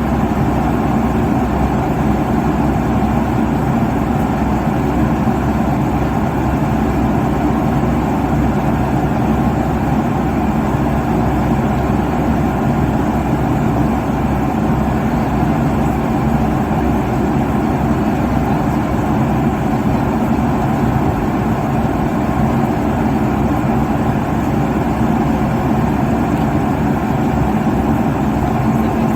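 Airliner cabin noise at cruising altitude: a steady, unchanging rush of engine and airflow noise, deep and low-heavy, with a faint steady hum underneath.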